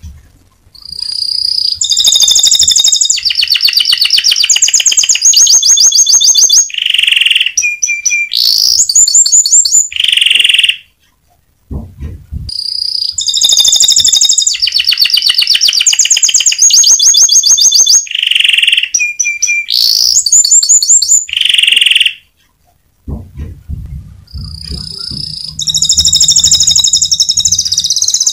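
Domestic canary singing a loud, fast song of rapid trills and rolls in long phrases, with two short pauses. After the first pause the same run of phrases comes round again.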